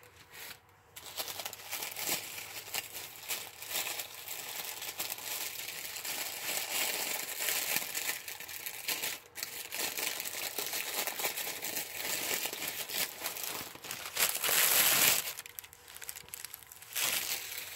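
Gift wrapping crinkling and rustling as a package is unwrapped by hand, with the loudest crackle about fifteen seconds in.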